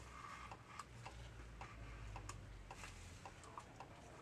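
Faint, steady ticking, about two to three ticks a second, over a low hum.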